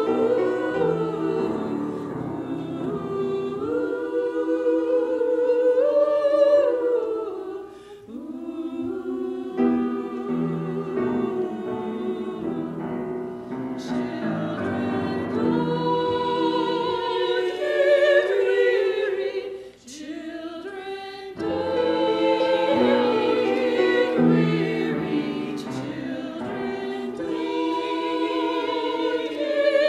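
A women's choir singing together in phrases, with short breaths between phrases about a third and two thirds of the way through.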